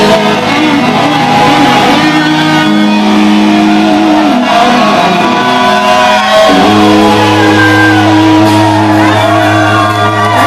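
Live rock band, electric guitars and bass, holding out long sustained chords at the close of a song, with shouting over them; the chords break off near the end.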